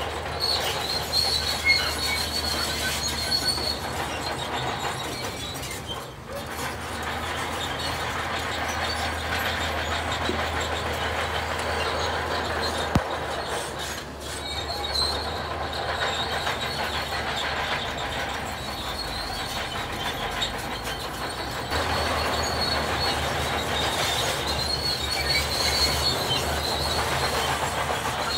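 Heavy diesel earthmoving machinery working, with a continuous metallic clatter and a high squeal that comes and goes, most clearly at the start and again near the end.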